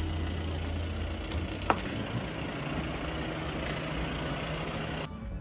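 Car engine running at idle, its low rumble dropping away a little over a second in, followed by a single sharp click.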